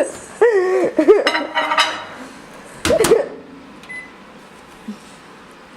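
A person's voice sliding up and down in pitch in the first half, then a single short microwave oven keypad beep about four seconds in.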